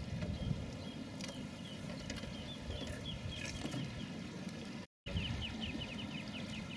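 A steady low rumble with a bird calling a rapid run of short, high chirps, about seven a second, starting about two and a half seconds in. The sound cuts out completely for a moment near five seconds.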